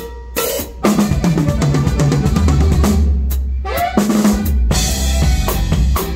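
Live band playing, the drum kit loudest (kick, snare and rimshots) over a moving bass line; the full band comes in a little under a second in.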